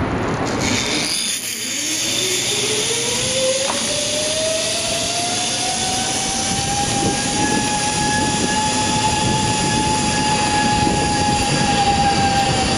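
Zipline trolley pulleys running along a steel cable as a rider slides down: a whine that rises in pitch as the trolley gathers speed, holds level, then begins to drop near the end, over a steady rushing noise.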